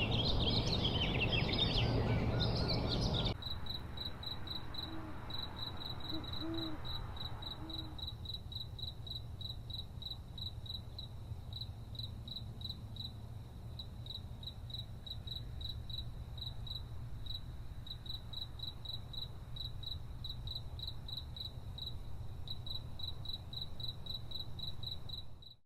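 Birds warbling for about the first three seconds, then after an abrupt cut, crickets chirping: one high note pulsing steadily, over a low steady rumble.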